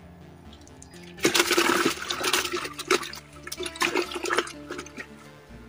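Water splashing at the pond's edge in a run of bursts, loudest about a second in, with further splashes and stopping a little past four seconds in. Faint background music plays under it.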